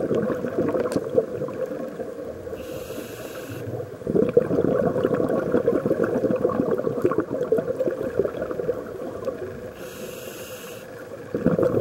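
Scuba diver breathing through a regulator underwater: long stretches of bubbling exhalation, broken twice by a short hissing inhalation, about three seconds in and again about ten seconds in.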